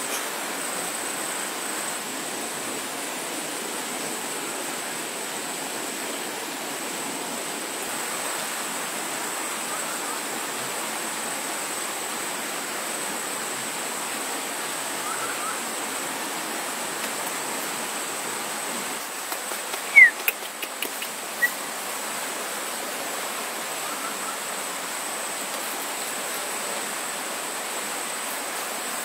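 Steady outdoor ambience: an even rushing hiss with a continuous high-pitched insect tone over it. A few short, sharp chirps or clicks come about two-thirds of the way in.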